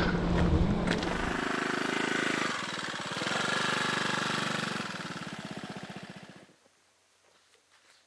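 Honda PS250 scooter's single-cylinder engine running at low speed, the sound dipping briefly and picking up again, then fading and stopping abruptly near the end.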